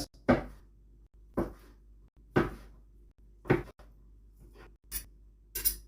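A series of short, sharp knocks, about one a second, each dying away quickly.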